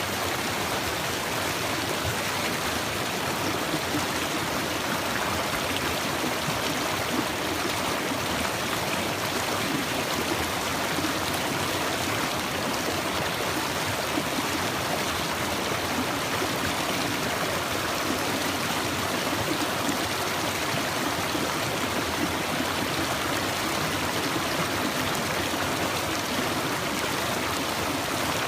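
Small stream running over rocks through tiny waterfalls: a steady rush of water.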